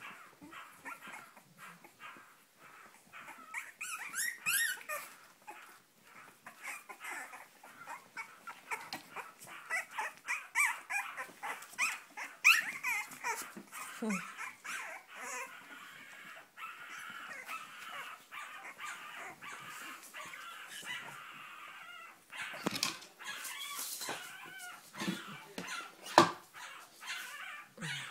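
A litter of Cavalier King Charles Spaniel puppies crying and yipping, with many short calls overlapping. A few sharp knocks come near the end.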